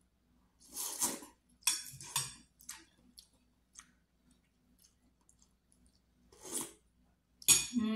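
A person slurping noodles and broth, with short noisy slurps about a second in, about two seconds in and again before the end, and quiet wet mouth clicks and chewing between them; the loudest slurp comes near the end.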